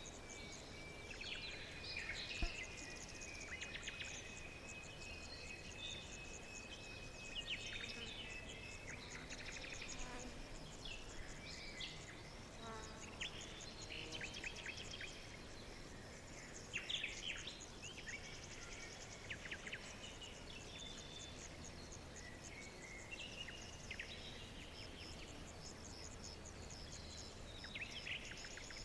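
Forest ambience of many small birds chirping and trilling, short calls overlapping throughout, with a thin steady high note held for the first several seconds.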